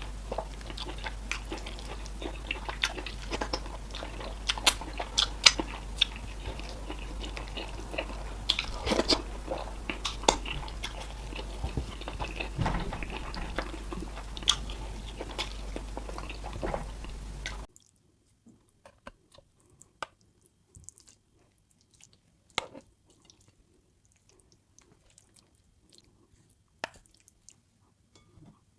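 Close-miked eating sounds of fufu with soup being chewed: wet mouth smacks and clicks. A steady low hum lies under them until about two-thirds of the way in, then drops away abruptly, leaving sparser, quieter smacks.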